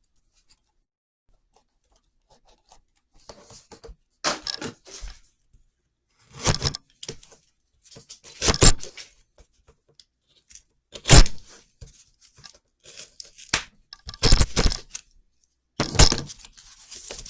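A very dull knife cutting and tearing open a sealed trading-card box's packaging, in scraping, tearing bursts every second or two with sharp cracks and knocks.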